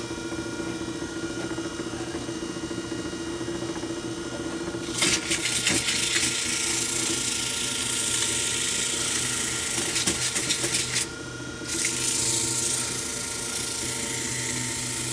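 A wood lathe running steadily with its motor hum. About five seconds in, sandpaper pressed against the spinning oak mortar sets up a loud, even hiss; it stops briefly near eleven seconds and starts again.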